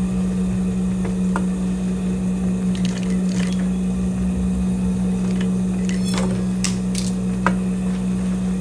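Industrial sewing machine motor running with a steady, even hum while denim is stitched, with a few short sharp clicks scattered through it.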